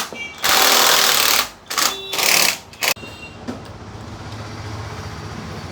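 A pneumatic workshop tool is run in several short, loud bursts during the first three seconds, with the hiss of compressed air. A steady low machine hum follows.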